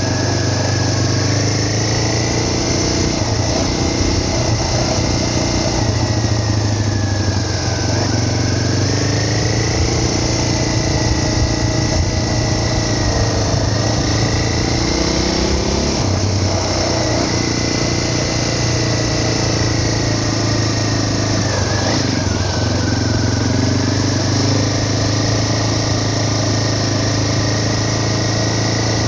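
A vehicle engine running continuously over a steady low drone, its pitch dipping and rising again several times as the engine speed changes.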